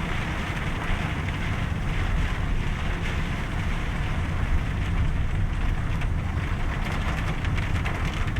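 Thunderstorm downpour: steady rain with light hail pattering, and wind rumbling on the microphone.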